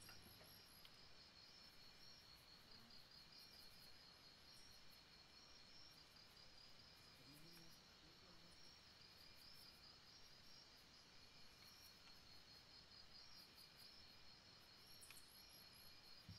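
Near silence: room tone with a faint, steady high-pitched pulsing trill running throughout.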